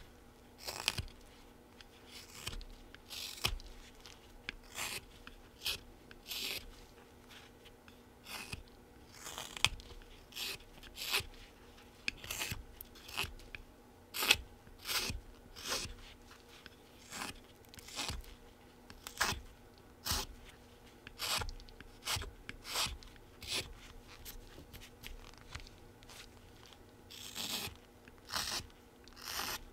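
Folding whittling knife (Flexcut Whittlin' Jack) shaving a small wood blank in short scooping cuts, each a dry scraping slice, about one a second and unevenly spaced.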